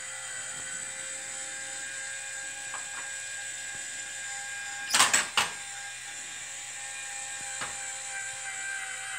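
Small electric motor of a remote-controlled reset target running with a steady whine as it raises its four silhouette plates, with a short burst of loud mechanical clacks about five seconds in.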